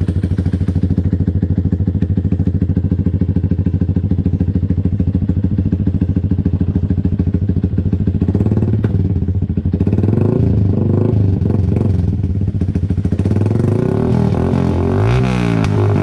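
Yamaha Sniper's single-cylinder four-stroke engine running through an aftermarket Pro Liner slip-on muffler, idling steadily at first. From about halfway it is revved, with several quick throttle blips rising and falling near the end.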